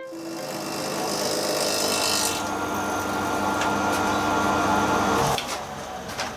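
A power tool cutting metal: a steady grinding, rasping noise with a faint whine, which stops abruptly about five seconds in.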